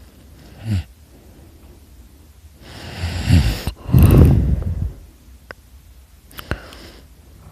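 A sleeping person snoring: a short snort about a second in, then one long, loud snore around the middle, a rasping breath in that breaks off briefly and goes on into a louder, rattling low rumble.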